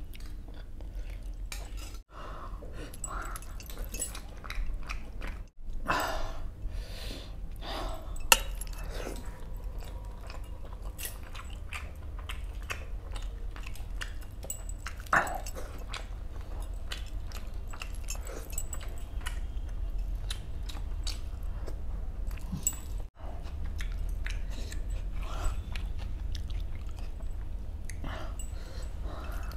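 Close-up eating sounds: a man chewing and smacking on rawas fish masala and rice, with wet squelches of fingers mixing rice and gravy on a steel plate. A few sharp clicks stand out, the loudest about eight seconds in.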